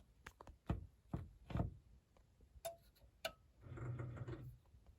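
A few light clicks and taps, about four in the first two seconds and two sharper ones just past the middle, then a short low hum near the end.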